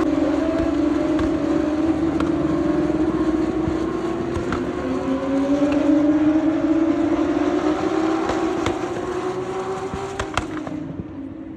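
Single-seater race car engines running at high revs as the cars pass along the straight. The engine note climbs slowly and a second car's note takes over about halfway. Near the end the sound turns quieter and duller.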